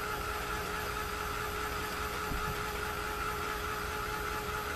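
A small motor's steady whirring hum with a faint, even whine, holding at one level throughout.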